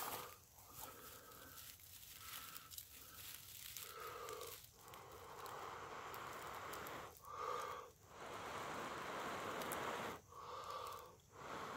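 A person blowing long, steady breaths into a tinder bundle that holds a friction-fire ember, to coax it into flame. There are several blows with short breaks for breath between them, and the dry fibres rustle now and then.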